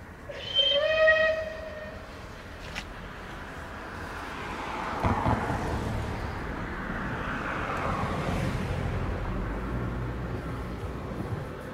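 A train sounds one warning blast lasting about a second and a half. A few seconds later a train approaches and passes with a building, steady rumble.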